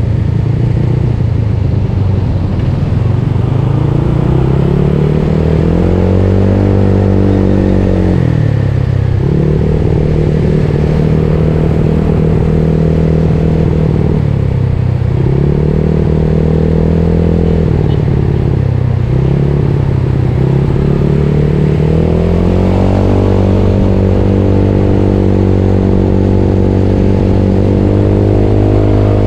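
Yamaha Mio Soul scooter's single-cylinder four-stroke engine, bored to a 58 mm piston, running under way. Its pitch rises and falls with the throttle, dropping briefly three times before climbing again and holding high revs near the end.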